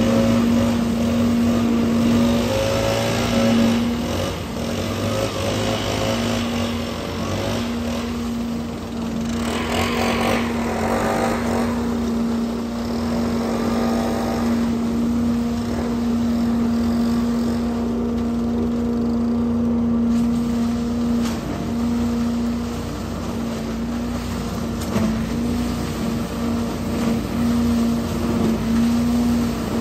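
Engine-driven leaf vacuum running steadily, its fan sucking dry leaves up through a large flexible hose, with a constant hum. A louder hiss swells briefly about ten seconds in.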